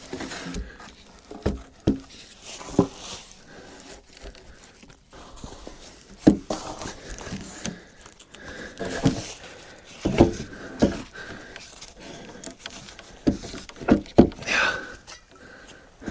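Wooden logs knocking as they are laid across one another to build a bench: about a dozen irregular knocks, with rustling in between.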